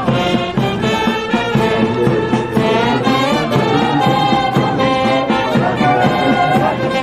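Brass band playing a march, several brass instruments holding and changing notes over a steady drum beat.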